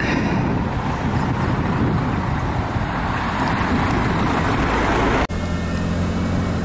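Steady rumble and hiss of a car, broken by an abrupt cut about five seconds in, after which a steady low engine hum carries on.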